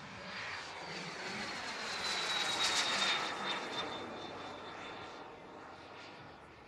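Elite Aerosports Havoc RC turbine jet flying past: a high turbine whistle over a rush of exhaust grows louder, peaks about three seconds in, and fades, the whistle dropping slightly in pitch as it passes.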